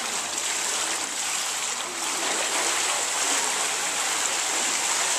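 Water splashing from a swimmer's backstroke: steady kicking and arm strokes churning the water, a little louder from about two seconds in.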